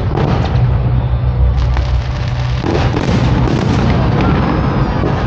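Fireworks display: aerial shells bursting with booms and crackle, with sharp reports about half a second in, again around one and a half to two seconds, and a heavier run of bursts about three seconds in.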